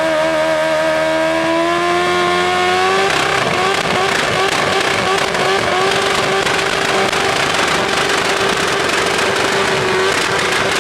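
Loud car engine revving, its pitch climbing slowly, then held steady about three seconds in as a harsh tyre-squeal hiss joins it, as in a burnout.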